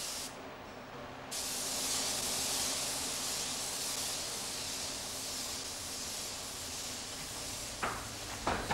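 Compressed-air spray gun hissing as it sprays finish. It stops for about a second near the start, then runs steadily, and two sharp knocks come near the end.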